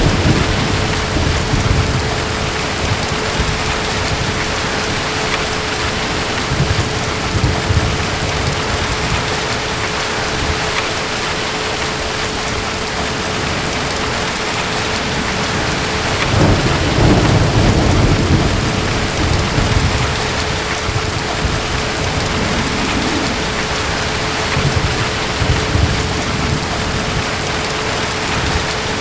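Steady heavy rain with distant thunder rumbling low under it: a long roll a little past the middle, and shorter rumbles near the start, about a quarter of the way in and near the end. A faint steady tone hums beneath the rain.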